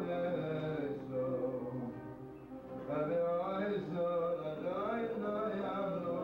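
A man singing a melody in phrases to his own acoustic guitar accompaniment.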